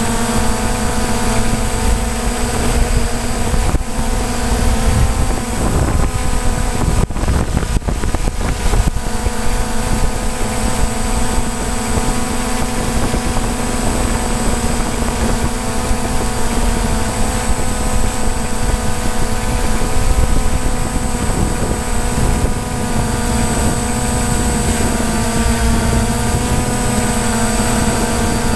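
DJI Phantom quadcopter's electric motors and propellers whining steadily in a hover, picked up by the GoPro on the drone itself, with propeller wash and wind rushing on the microphone. The pitch holds steady, with a brief buffeting disturbance about seven to nine seconds in.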